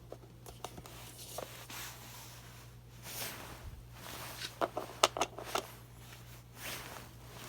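Light clicks, taps and rustles of the kettle's plastic parts and wiring being handled, with a cluster of small knocks about five seconds in, over a steady low hum.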